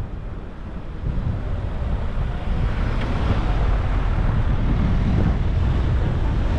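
Road and wind noise from a car on the move, a steady rushing rumble with wind buffeting the microphone, growing louder over the first three seconds and then holding steady.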